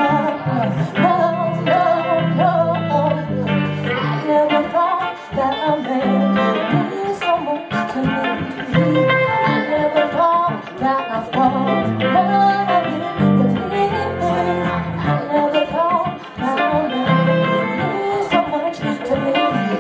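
Live singing with guitar accompaniment and a steady bass line.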